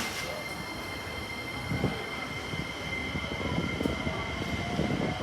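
Keikyu Line electric train moving at the station platform: low rumble and wheel knocks that build, with high steady whining tones. Near the end a motor whine rises slowly.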